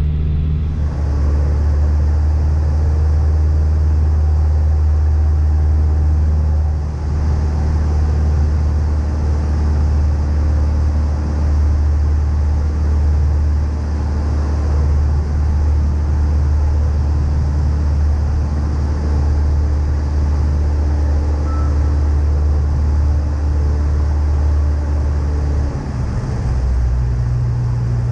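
Cessna 152's four-cylinder Lycoming O-235 engine and propeller droning steadily in flight, heard from inside the cabin. The engine note changes near the end, as with a change of power setting.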